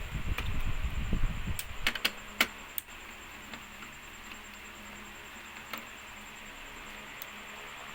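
Small sharp clicks and taps from handling the parts and screws of a flat-screen TV being taken apart. There is a rustle at first, a quick cluster of about half a dozen clicks between one and a half and three seconds in, then a few single clicks over a faint steady hum.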